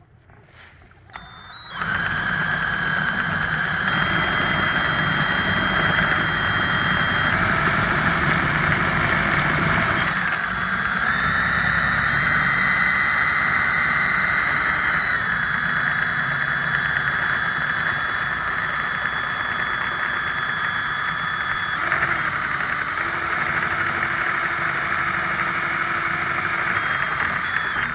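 Bauer cordless right-angle drill on its high speed, spinning a kayak propeller shaft: a loud, steady motor whine that starts about two seconds in and steps up and down slightly in pitch a few times.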